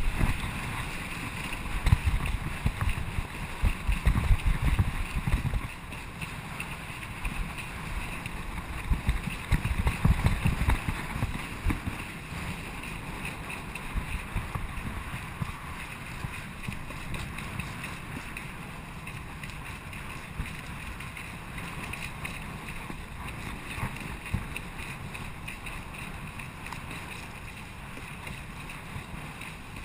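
Wind buffeting the GoPro's microphone over the rush and spray of water under a kiteboard planing across choppy water. The low gusty buffeting is heaviest in roughly the first ten seconds, then settles to a steadier rush.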